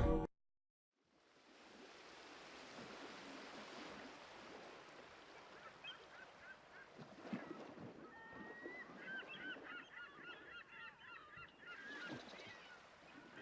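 Music cuts off, then a faint ambient field recording fades in with a flock of birds giving many short, high calls that grow more frequent after about six seconds.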